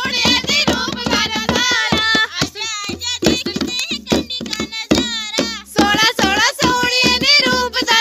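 Women singing a wedding song together in high voices, with sharp percussive beats keeping time.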